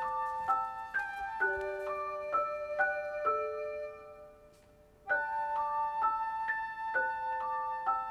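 Slow piano melody of single held notes, about two a second. It dies away around four seconds in and starts again about a second later.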